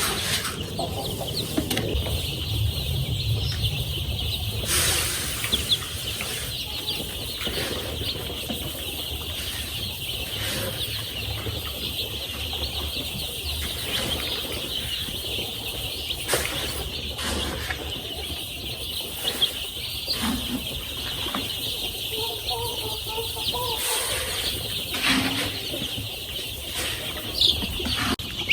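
A brood of young chicks peeping continuously, many high calls overlapping into a dense chorus, with a few brief knocks or rustles.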